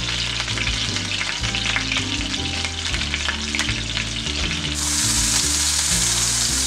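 A ground-beef burger patty sizzling in hot oil in a nonstick skillet on high heat, a steady crackle. About five seconds in the sizzle gets louder and brighter.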